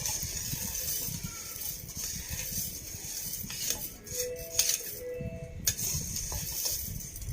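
Puffed rice being poured into a tiffin box: a steady dry rustle with a few clicks and clinks of the container.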